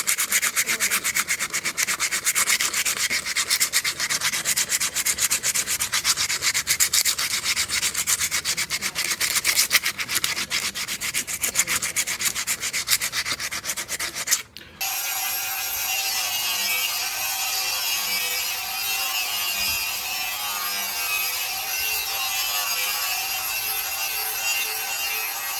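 Abrasive rubbing on the forged leaf-spring steel blade in fast, even strokes, during the finishing stage. About halfway through it cuts off abruptly and gives way to a steady machine whine with a few held tones, typical of a grinding or polishing wheel running.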